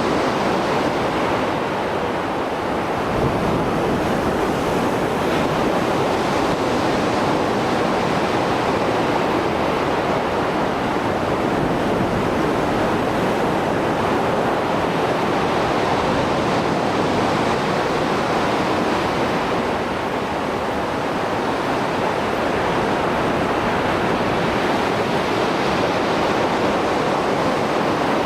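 Mediterranean Sea surf after a storm: a continuous rush of waves breaking and washing on the shore, swelling and easing slightly, with some wind noise on the microphone.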